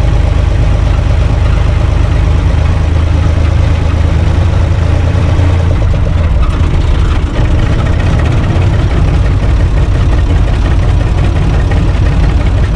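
UTB 445 tractor's three-cylinder diesel engine running steadily as the tractor drives along, heard from inside the cab. Its deep note changes slightly about six seconds in.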